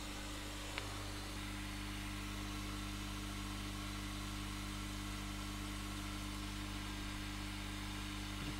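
Steady hum with a faint hiss from running bench equipment, unchanging throughout, with one faint tick about a second in.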